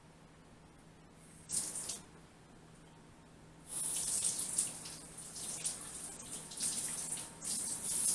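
Kitchen sink tap running in spurts: a short burst of water about a second and a half in, then water running and splashing unevenly from about halfway through to the end.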